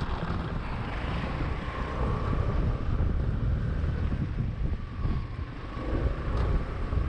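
Wind buffeting the microphone over the steady rumble of a vehicle on the move.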